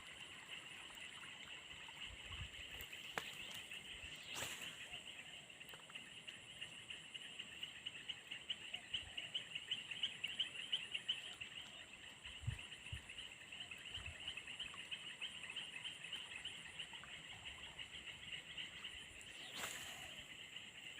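Steady outdoor chorus of calling insects: a fast, pulsing chirr with a thin, steady high whine above it, swelling for a few seconds in the middle. A sharp click comes about four seconds in and another near the end.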